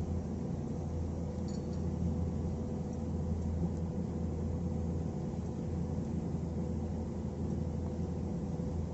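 A steady low hum with a faint constant tone, unchanging throughout, and a brief faint high blip about one and a half seconds in.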